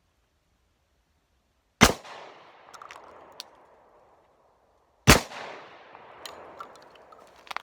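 Two shots from a Glock 29 pistol in 10mm, about three seconds apart, each followed by a fading echo and a few light clicks.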